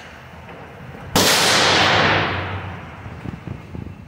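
A single 9mm shot from a Glock 17 pistol fitted with a compensator, about a second in. The crack rings out through the indoor range and dies away over the next second or so.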